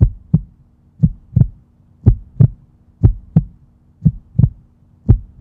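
Heartbeat sound effect: paired low thumps, lub-dub, repeating evenly about once a second.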